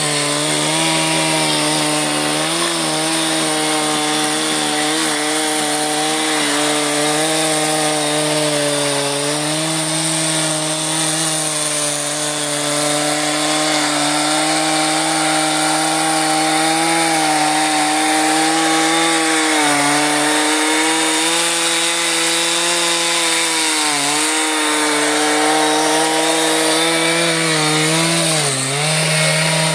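Stihl chainsaw running at high revs, cutting through dry oak logs into firewood rounds. The engine note holds steady and sags briefly a few times as the chain bites under load, most clearly in the last ten seconds.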